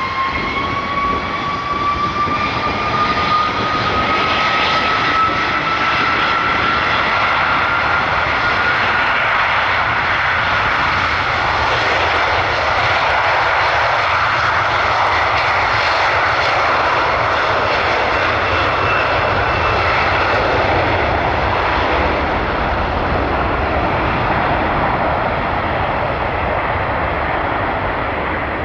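Airbus Voyager KC3 tanker's Rolls-Royce Trent 700 turbofan engines spooling up to take-off power: a rising whine over the first several seconds, then a loud steady jet roar as the aircraft accelerates down the runway, easing a little near the end.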